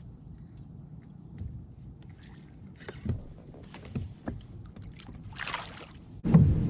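Light knocks and handling sounds on a kayak over a low background rumble, with a brief hiss near the end. Then a sudden loud, steady rush of noise starts just before the end.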